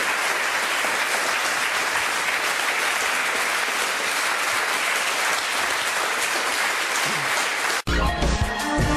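Studio audience applauding steadily. Near the end it cuts off abruptly and loud theme music with a heavy bass beat starts.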